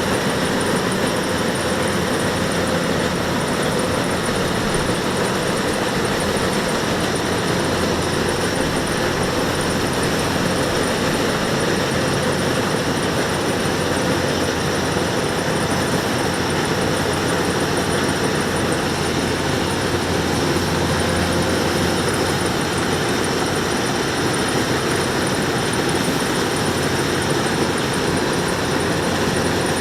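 Kubota DC-105X rice combine harvester running steadily, its diesel engine droning without a break.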